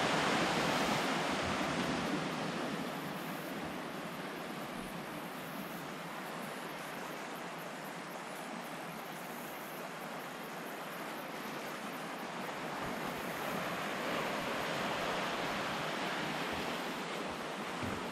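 Sea waves washing on the shore: a steady rushing that swells at the start and again about three-quarters of the way through.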